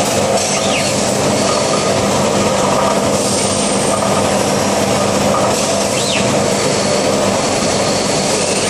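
Steady, loud running noise of an MT Zanetti transfer machine cell in operation, with a constant low hum. Two short whistles rise and fall in pitch, about half a second in and again about six seconds in.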